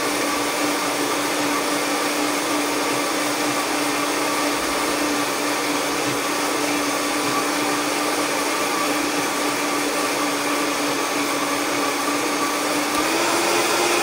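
Vita-Mix Total Nutrition Center blender running at high speed, churning a liquid tahini and tamari dressing until it emulsifies. A steady motor whine, its pitch rising slightly about a second before the end.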